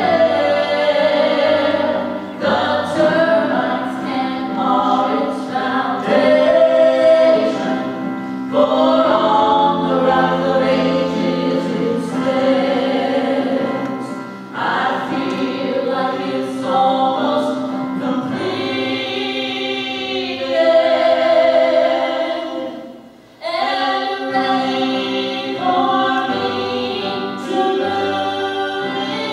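A woman and a man singing a gospel song as a duet, accompanied on a Yamaha Clavinova digital piano. The music briefly drops away about three-quarters of the way through, then resumes.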